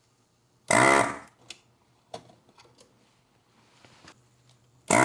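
Desoldering gun's vacuum pump firing twice, each a short buzz of about half a second that rises in pitch as it starts, with air hissing in as molten solder is sucked off the capacitor leads. A few light clicks come between the two.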